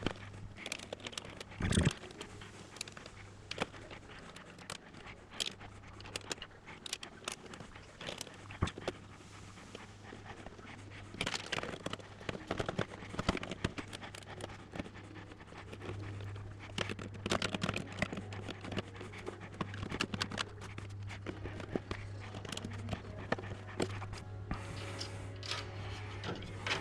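Scattered light clicks, taps and scrapes of a motherboard being handled and set down onto the standoffs of a PC case, over a steady low hum that gets louder about two thirds of the way through.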